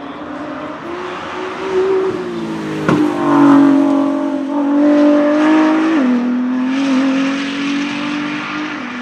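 2017 Ford GT's 3.5-litre twin-turbo EcoBoost V6 accelerating hard past on the hillclimb, with a sharp crack about three seconds in. The engine note is loudest as the car goes by, then drops suddenly in pitch at an upshift a few seconds later and runs on as it pulls away.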